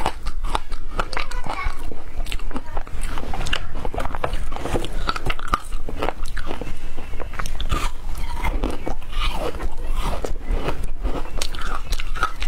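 Teeth biting and crunching through hard frozen passion-fruit ice, with many sharp cracks in quick succession and chewing of the broken ice.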